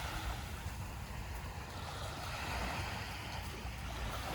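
Small waves washing onto a sand beach: a hiss of surf that swells and eases about midway. A low wind rumble on the microphone runs underneath.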